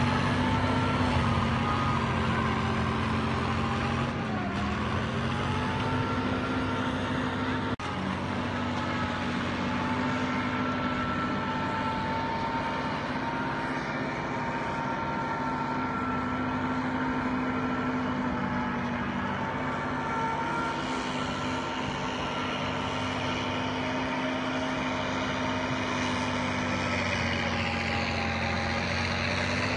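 An engine running steadily, its pitch sagging briefly about four seconds in and then recovering.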